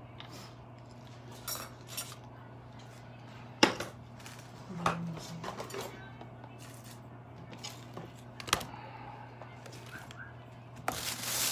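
Scattered clicks and knocks of a smartphone being handled and fitted into the clamp of a DJI drone remote controller, the sharpest about three and a half seconds in, with a short rustle near the end. A steady low hum runs underneath.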